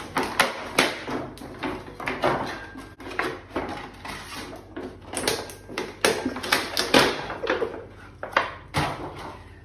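Plastic wrapping being pulled and crinkled off a new wok: an irregular run of crackles and rustles.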